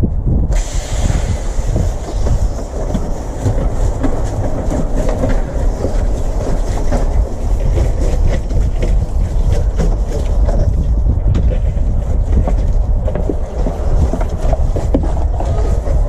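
Heavy rumbling wind noise on the microphone, with the hiss of a water-fed pole brush spraying and scrubbing a plastic door starting about half a second in.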